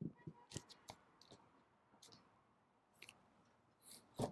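Faint scattered clicks and taps of vinyl record jackets being handled, with a louder knock near the end as he reaches into a bin of LPs.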